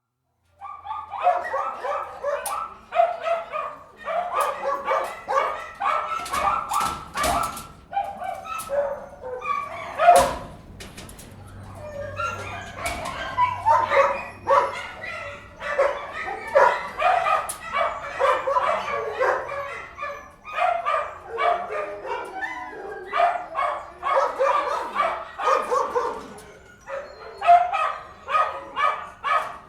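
Many dogs barking and yipping at once in kennels, an overlapping, continuous chorus of barks with some whimpering, briefly easing about eleven seconds in before building again. A few sharp metallic-sounding clicks or bangs cut through around six to ten seconds in.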